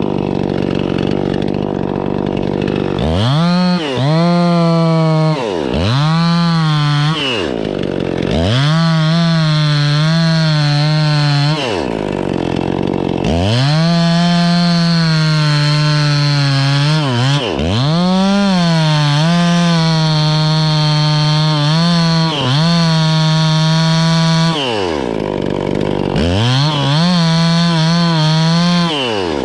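Chainsaw revved to full throttle about six times, each run held for one to a few seconds with slight dips in pitch under load, then dropping back to idle between. It is cutting into poplar wood.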